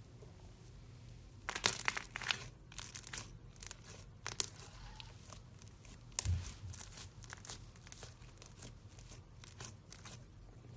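Thick, puffy slime being pressed by hand through a wire cooling rack, giving clusters of small crackles and pops as it squeezes through the grid. There is a soft thump about six seconds in, as the palm presses down, followed by a long run of crackling.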